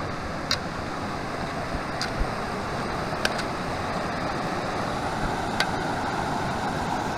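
Fast-flowing mountain creek rushing, a steady even wash of water, with a few sharp clicks over it.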